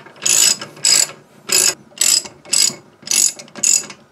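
Socket ratchet clicking in short bursts, about two strokes a second, as it tightens the castle nut on the spindle of a 1972 Chevrolet Vega to seat the freshly packed front wheel bearing.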